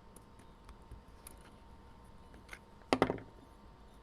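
Small, sharp clicks and taps of a wrench and screwdriver working the bar nut and chain tensioner of a mini cordless chainsaw while the chain is adjusted. A louder short knock comes about three seconds in.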